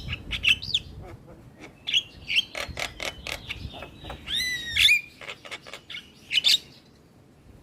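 Javan myna singing a rapid, varied song of sharp clicks, whistles and harsh chattering notes, with a loud wavering whistled phrase about four seconds in; it goes quieter near the end.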